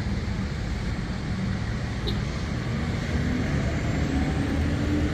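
Large diesel engines of parked fire trucks running at idle: a steady low drone, with one engine note rising slightly in pitch near the end.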